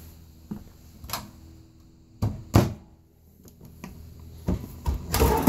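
Wooden kitchen drawers on ball-bearing glides being pulled open and pushed shut: a series of knocks and thumps, the loudest about two and a half seconds in and again near the end.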